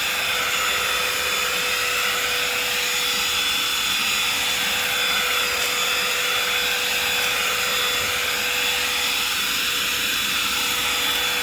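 Holife 110 W cordless handheld vacuum cleaner running continuously with a strong suction noise: a steady whine over rushing air whose upper pitch rises and falls slowly.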